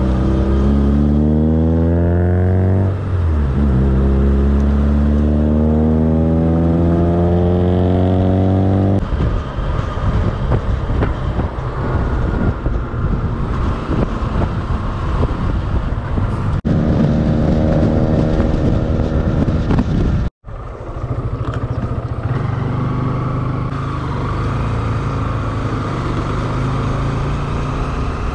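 Motorcycle engine heard from the rider's seat, accelerating with its pitch climbing, dropping once about three seconds in and climbing again, then backing off to wind and road rush about nine seconds in. It pulls up again later, the sound cuts out for an instant about two-thirds of the way through, and the engine then runs steadily at cruising speed under wind noise.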